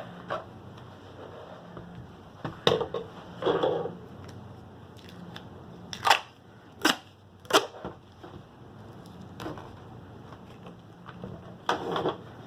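Crinkly crackles and snaps from handling a diamond painting canvas while covering it with patterned duct tape. About six short, separate sounds are spread out with quiet gaps between them.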